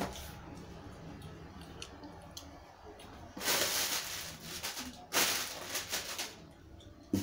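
Inflated plastic air-cushion packing bags rustling and crinkling as they are pulled out of a cardboard box. There are two loud spells of about a second each, one about three and a half seconds in and one about five seconds in, and a soft thump near the end.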